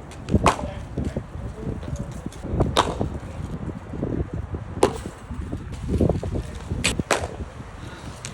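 Cricket bat striking the ball in the nets: a handful of sharp cracks a couple of seconds apart, the last two close together.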